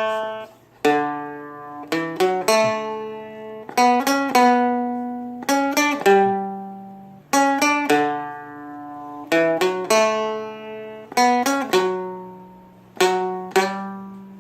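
Seagull Merlin M4, a four-string dulcimer-style instrument, playing a slow melodic run: about seven clusters of quickly plucked notes, each left to ring and fade before the next.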